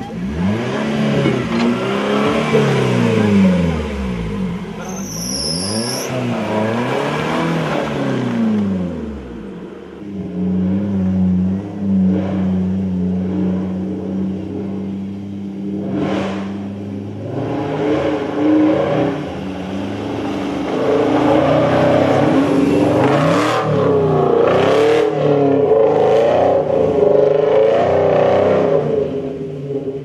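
An off-road 4x4's engine revving up and down over and over, then holding a steady note for several seconds before the revs vary again, with a few sharp knocks along the way.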